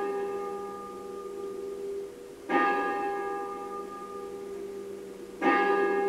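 A bell tolling slowly: two strokes about three seconds apart, each ringing on over the fading ring of a stroke just before. It tolls midnight.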